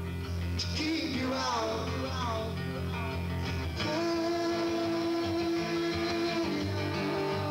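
A man singing over a strummed acoustic guitar, taped live through a camcorder's built-in microphone. The voice wavers through a line in the first couple of seconds, then a long held note comes in about four seconds in.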